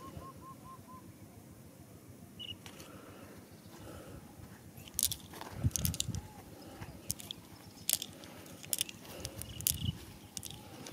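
Fingers scraping and digging through dry, gravelly soil, with sharp clicks of small stones and glass marbles knocking together, coming one after another from about halfway through. A short run of bird chirps sounds in the first second.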